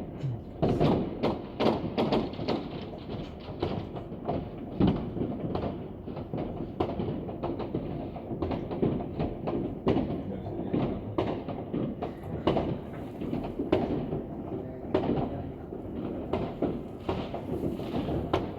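Fireworks going off all around: a constant, irregular string of bangs and thuds, some close and loud, many distant and muffled, with no let-up.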